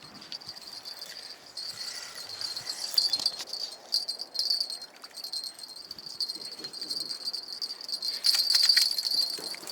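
Steady, high-pitched insect chirring, with irregular light clicks over it and a louder flurry of clicks about eight seconds in.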